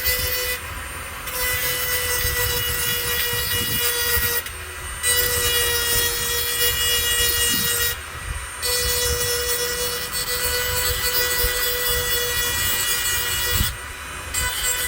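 A power sharpening tool running with a steady whine while it grinds along the edges of hedge trimmer blade teeth, making a rasping hiss. The grinding breaks off briefly four times as the tool is lifted and moved to the next tooth.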